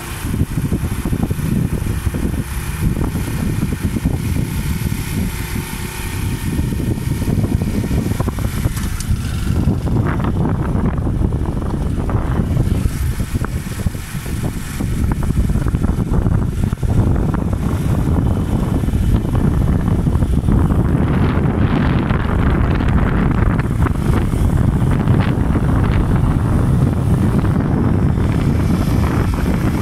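Heavy low wind rumble on the microphone of a camera travelling alongside a road cyclist, mixed with the running noise of a motor vehicle.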